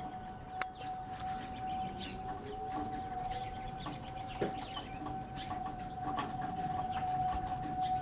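Outdoor warning siren about a mile away sounding a steady tone at one unchanging pitch during its scheduled test. Small birds chirp over it, with a sharp click just under a second in and a dull thump about halfway through.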